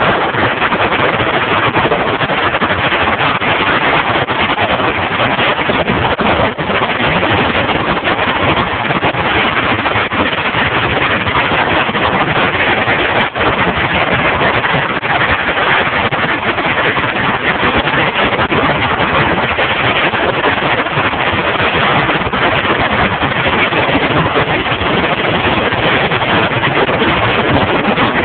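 Loud, steady wind rush buffeting a phone's microphone on a fast downhill bicycle ride.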